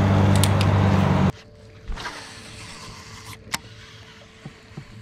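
Steady low hum with rushing noise from refuelling at a gas station pump, which stops abruptly about a second in. Then quiet outdoor ambience with a few faint ticks and one sharp click past the middle, from handling a baitcasting reel.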